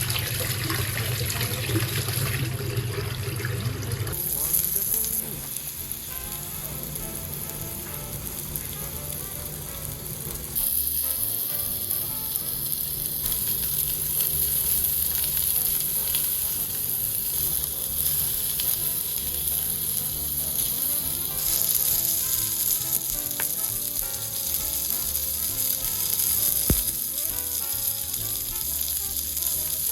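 Food frying in hot oil in a pan, a dense steady sizzle that steps up and down in loudness a few times.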